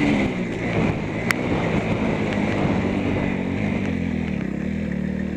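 Motocross bike's engine running while riding, heard close up from a camera mounted on the bike, with wind rushing over the microphone. There is a single sharp click about a second in, and after that the engine settles into a steady, lower note.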